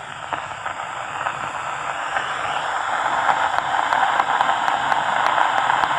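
Steady hiss of an old film soundtrack, swelling gradually, with faint crackling ticks from about halfway through.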